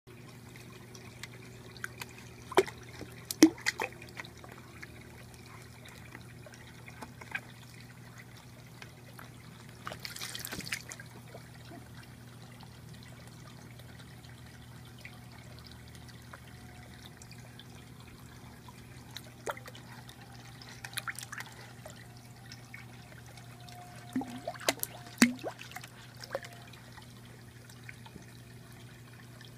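Water in a turtle's kiddie pool trickling and dripping over a steady low hum. There is a cluster of sharp plops and small splashes a few seconds in, a brief splashy rush about ten seconds in, and more plops near the end.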